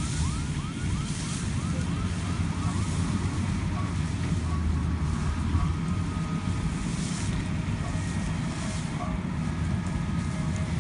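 Combine harvester engine running steadily. A short squeaky chirp repeats about three times a second over it and fades out after about three seconds.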